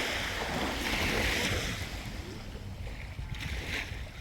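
Waves washing onto a beach: a hiss that swells twice in the first couple of seconds and then eases, with wind rumbling on the microphone.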